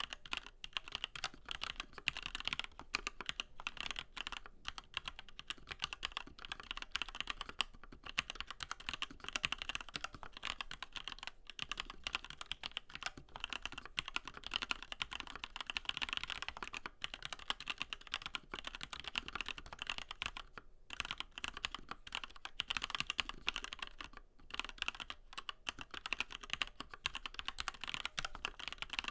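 Continuous fast typing on a Dark Project One mechanical keyboard with Gateron Yellow linear switches and PBT double-shot keycaps: a dense run of key clacks, broken by a few brief pauses.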